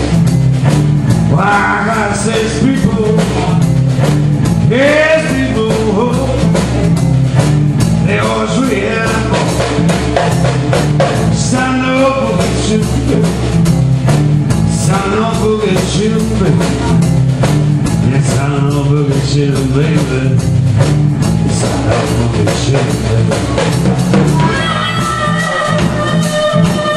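Electric blues boogie played live: a male voice singing over a driving, repeating electric guitar riff and a drum kit, with harmonica coming in near the end.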